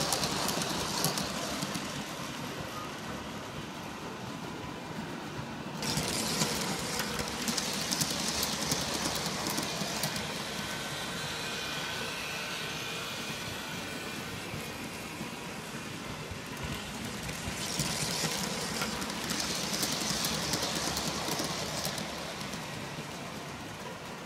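G scale model trains running on the track, a steady rolling noise of wheels and motors. It grows suddenly louder about six seconds in and again around eighteen seconds as a train passes close by.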